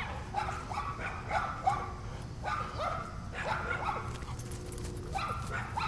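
A dog whining and yipping in short, rising cries that come in quick clusters. It is excited play-noise from a dog waiting for a tennis ball to be thrown in a game of fetch.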